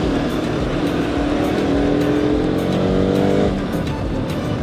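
Motorcycle engine pulling through traffic, its pitch rising steadily as it accelerates, then easing off about three and a half seconds in, over road and wind noise.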